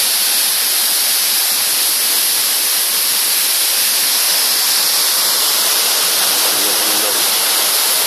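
Tall waterfall plunging onto a rocky pool, making a loud, steady, even rush of falling water and spray.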